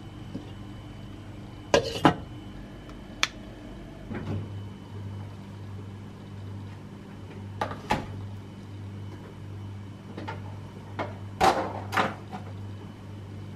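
Kitchen handling sounds at a small fridge: a few sharp knocks and clatters of the door and plastic food containers being set on the counter, the loudest two close together near the end, over a steady low hum that comes in about four seconds in.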